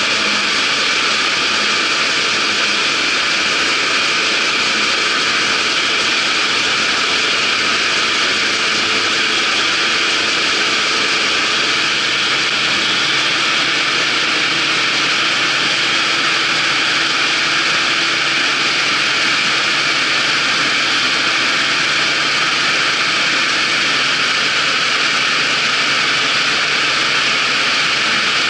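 Claas Dominator 88 combine harvester running steadily: a loud, even mechanical drone and hiss from its engine and machinery, with no change in speed.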